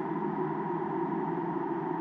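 Steady blizzard wind blowing, an unbroken drone with no distinct gusts.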